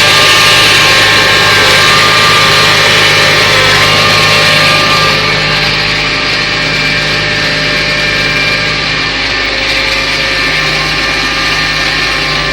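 Claas Arion tractor and Grimme SE 75-30 potato harvester running steadily, engine noise mixed with several steady whining tones from the machinery; slightly quieter from about five seconds in.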